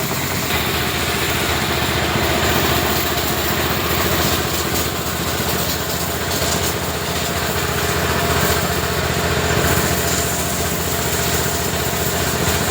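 Motorbike-wash pressure washer running steadily, its motor humming under the hiss of the water jet.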